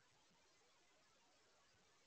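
Near silence: only a faint, steady hiss.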